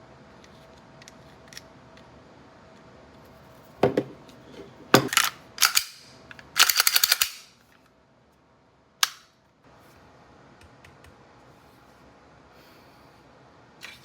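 Glock 45 airsoft pistol giving sharp mechanical snaps: one about four seconds in, a few more soon after, then a fast run of about eight in under a second, and a last single snap a couple of seconds later.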